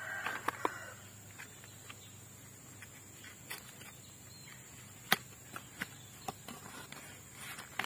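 Scattered small clicks and taps of a white cardboard phone box and its plastic accessories being handled, with one sharp click about five seconds in.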